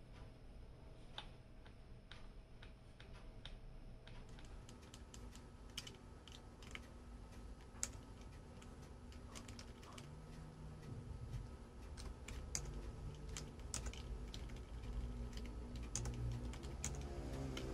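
Faint clicks of computer keyboard keys being pressed one after another at an uneven pace, coming more often from about four seconds in.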